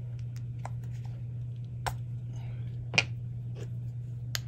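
Small metal-cased capstan motors handled and knocked together in the hands, giving a few sharp clicks, the loudest about three seconds in, over a steady low hum.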